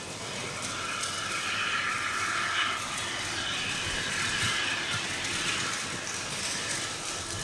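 Steam tank locomotive and its coaches rolling slowly towards the station: a steady high hiss with faint squealing tones in it, swelling about a second in and easing off near the end.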